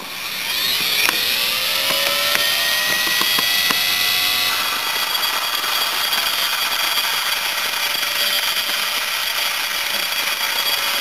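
Dremel rotary tool starting up with a rising whine, then running at a steady high speed while its bluestone grinding point is dressed flat against a wheel dresser, with a gritty grinding hiss.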